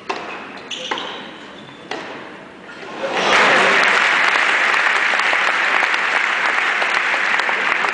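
Three sharp tennis ball strikes in the first two seconds, then the arena crowd applauding loudly from about three seconds in, as the point ends.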